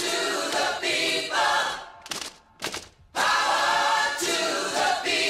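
Intro jingle of a group of voices singing together in chorus: one short phrase, a brief break about two seconds in, then the phrase again.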